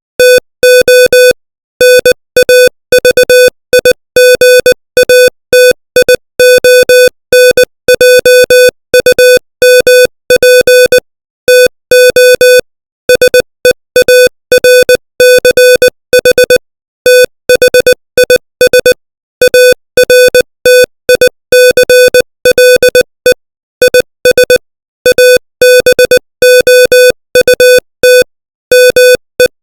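Morse code sent as a steady mid-pitched electronic tone at 20 words per minute: short and long beeps in quick groups, with brief silent gaps between letters and words.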